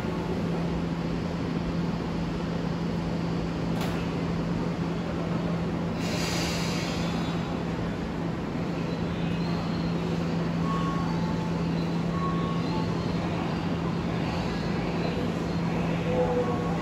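Tobu electric commuter train standing at the platform with its doors open, its onboard equipment humming steadily. A short hiss comes about six seconds in.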